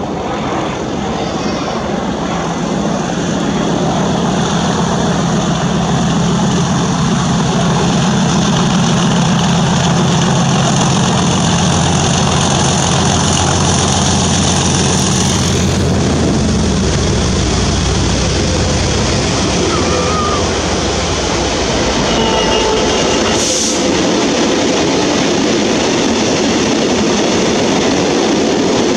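Class 37 diesel locomotive's English Electric V12 engine working under power with a high turbocharger whistle as it passes. About halfway through, the engine sound gives way to the steady rumble of loaded engineers' wagons running by.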